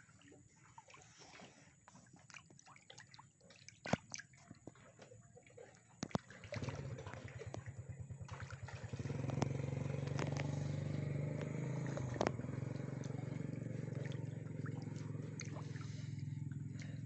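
Tilapia crowding the surface of a river fish cage make small splashes, drips and smacking clicks at the water. About six seconds in, a small engine starts running, pulsing at first, then steady and louder, and it is the loudest sound from then on.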